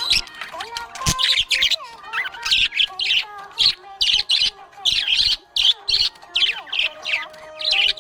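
Budgerigar chirping: a fast run of short, high chirps, a few each second, with lower gliding warble notes between them.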